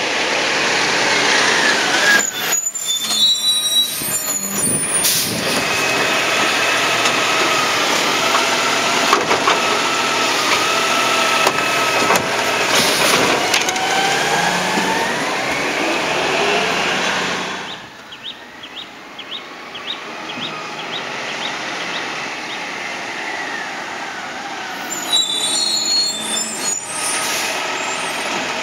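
2021 Peterbilt 520 refuse truck with a New Way Sidewinder automated side-loader: air brakes hiss sharply a few seconds in and again near the end. Between them the engine runs steadily and then revs up in rising pitch as the hydraulic arm reaches for a cart, before dropping back suddenly to a quieter idle with a short run of light ticks.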